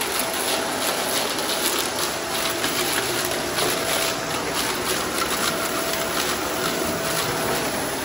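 Shark Apex upright vacuum running steadily with a faint motor whine, sucking grit and debris off a concrete floor with a constant crackle of particles.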